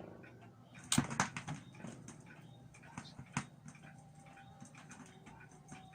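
An Akai AP-B20 turntable's Audio-Technica AT3600 stylus setting down on a vinyl record with a sharp click about a second in. Scattered crackle and pops from the lead-in groove follow over a faint low hum, before the music starts.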